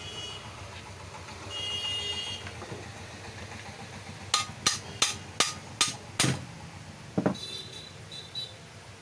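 A small ball-peen hammer tapping a Horse Power HP1351R marble cutter six times in quick succession, a little over two blows a second, with the hammer blows ringing slightly. One more knock follows about a second later. The taps knock the motor housing loose from the gear housing to reach the armature.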